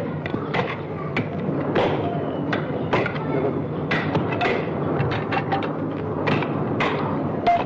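Construction-site clatter: many irregular knocks and clanks over a steady rumbling din, heard on an old film soundtrack with a dull, cut-off top end.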